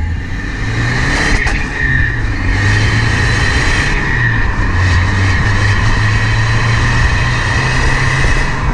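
Audi A4 2.0 TDI diesel engine pulling the car along, heard from outside at the rear with steady tyre and wind noise; the engine note shifts a few times as it falters through a gear change around 3,000 rpm, a hesitation the owner suspects comes from the intake swirl flaps.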